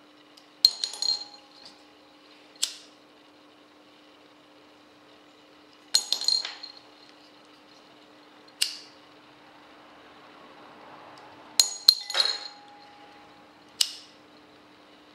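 Small hard pieces handled and dropped into a ceramic bowl: three rounds, each a short cluster of clicks and clinks followed about two seconds later by a single ringing clink, over a faint steady hum.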